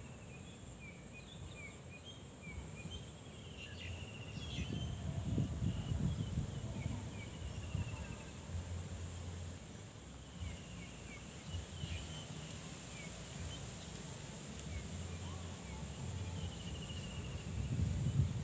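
Waterside countryside ambience: a steady high insect drone with scattered short bird chirps, and a low rumble that swells about five seconds in and again near the end.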